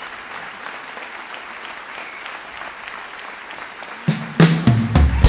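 Audience applauding. About four seconds in, the live band comes in with heavy bass and drum hits.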